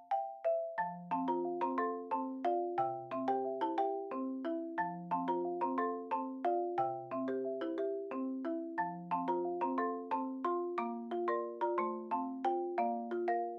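Background music: a light, bouncy tune on marimba-like mallet notes with a bass line.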